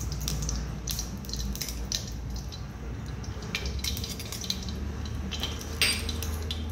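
A metal spoon scraping ghee out of a small brass bowl, with light clinks against the bowl and the steel kadhai and a louder clink near the end, over a low steady hum.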